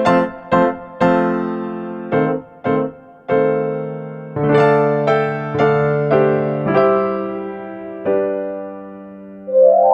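Background music: a light keyboard tune played as separate notes, each struck and then fading away. Near the end a quick rising run of notes leads into the next section.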